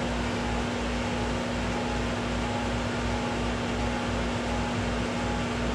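Steady hum and fan hiss of a CO2 laser engraver's equipment running nonstop in the shop, with a low throb about twice a second.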